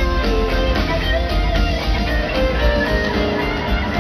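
Live rock band playing through the amphitheater sound system, heard from within the crowd: a lead guitar line with pitch slides runs over steady bass and drums.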